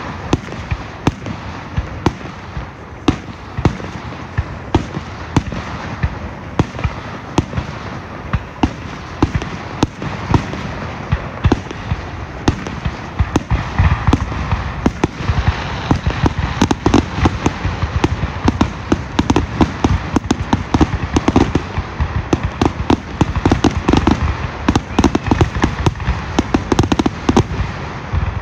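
Aerial firework shells bursting in a rapid barrage of bangs, the pace quickening into a dense, near-continuous run of bangs about halfway through: a fireworks grand finale.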